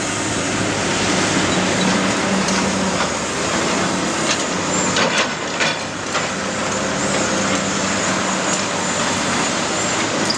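Heavy diesel demolition machinery running steadily, with a few sharp clanks about halfway through.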